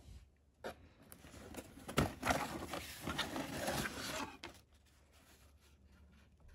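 Cardboard shoe box being opened by hand: the lid scrapes and rustles against the box for a few seconds, with a sharp knock about two seconds in. The sound fades to faint near the end.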